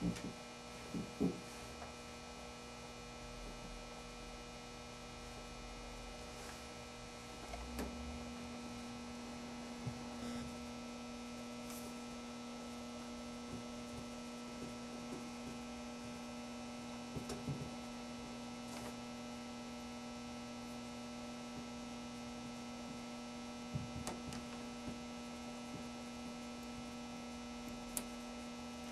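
Steady electrical mains hum, getting stronger a few seconds in, with faint scattered ticks and rustles of masking tape being pressed down by hand.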